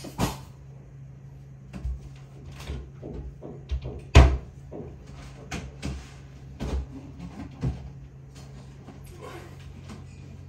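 Rummaging for a tool: a string of irregular knocks, clicks and rattles as containers and small objects are handled and opened and shut, with one sharp knock about four seconds in, over a low steady hum.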